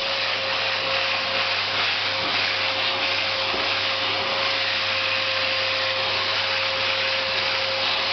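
Vacuum cleaner running steadily: an even rush of air with a constant hum.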